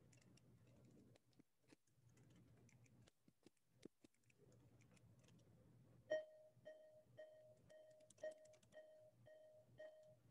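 Faint scattered clicks over a low electronic hum, then from about six seconds in a short electronic beep repeating about twice a second.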